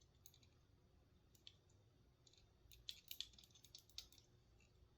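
Near silence with faint, scattered small clicks and taps, most of them in a cluster about three seconds in.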